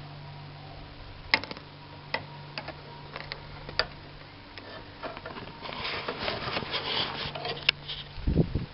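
Handling noise close to a camera set down on the ground while a small fish is unhooked: a few scattered sharp clicks, then a busy stretch of quick clicking and rustling from about five and a half seconds in, and a dull low thump near the end.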